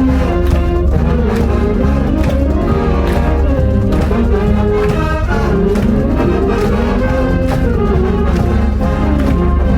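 High-school wind band playing live: brass instruments carry a melody over a steady beat of drum strokes.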